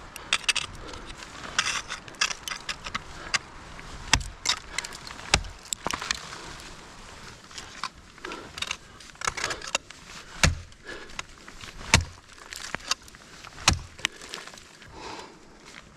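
Ice axes and crampons striking into ice in irregular blows, several landing with a deep thump, over the jangle of metal climbing gear clipped to a harness.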